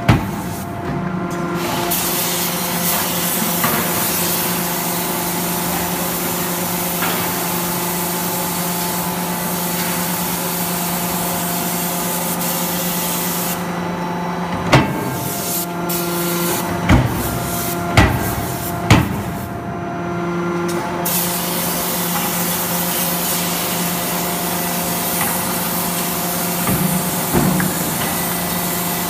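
80 kJ CNC hydraulic die forging hammer striking a hot billet: four sharp blows about halfway through, roughly one a second, over a steady hiss and hum of running machinery.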